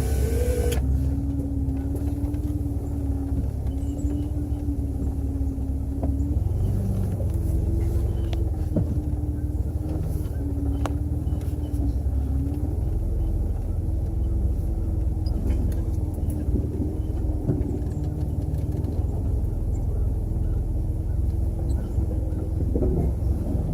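4x4 vehicle's engine and drivetrain running at low speed over a rough trail: a steady low rumble with a droning hum that steps up slightly about six seconds in, and a few light knocks.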